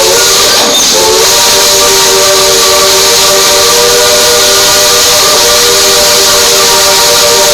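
Three-chime steam locomotive whistle blowing a long chord over heavy steam hiss. The tones sag and break briefly about a second in, then hold steady.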